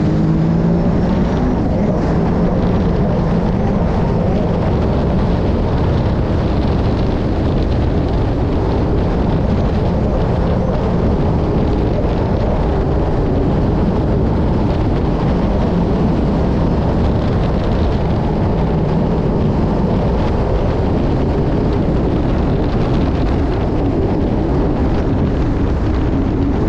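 Sea-Doo RXT-X 300 jet ski running steadily at speed, its supercharged three-cylinder engine drone mixed with the rush of spray and wake. Heavy wind noise on the handlebar-mounted camera's microphone.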